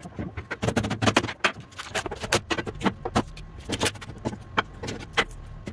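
A hammer knocking a wooden resin-casting mould apart to free the cast epoxy handle blocks: a rapid, irregular run of sharp knocks and wood clatter, several a second.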